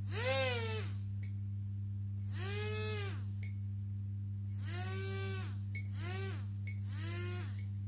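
Small electric model-aircraft motor with its propeller, spun up briefly and back down five times, each run a short whine that rises and falls in pitch, over a steady low hum.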